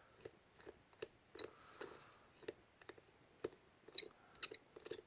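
Faint, irregular small clicks and ticks of a precision screwdriver turning a tiny screw out of an iPhone 6, about one or two a second.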